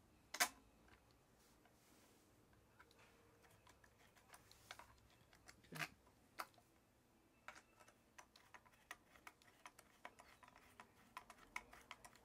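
Light metal clicks and ticks of a small hand tool working the rear brake caliper bolts on an electric scooter wheel as they are tightened by hand. One sharp click near the start, two more around the middle, then a run of small irregular ticks, several a second, toward the end.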